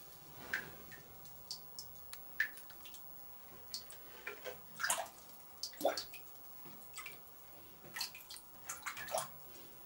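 Light, irregular water splashes and drips at the surface of a cave pool, from a hooked softshell turtle struggling beside a floating bottle line.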